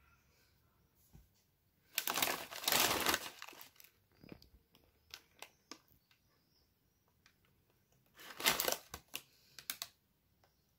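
Plastic snack bag of tortilla chips crinkling as it is handled, in two loud bouts: one about two seconds in lasting over a second, and a shorter one near eight seconds. Scattered small crackles come in between.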